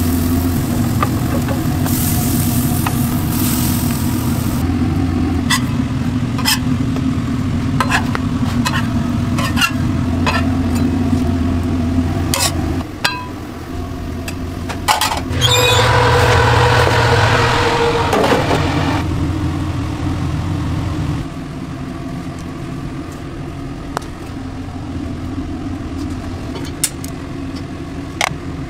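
Commercial kitchen noise: a low machine hum with scattered clicks and scrapes as a metal spatula lifts toasted burger buns off a flat-top griddle. About halfway through, a louder hiss lasts roughly three seconds.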